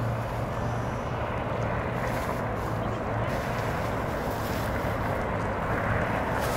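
Steady hum of distant road traffic with a constant low drone, unbroken throughout.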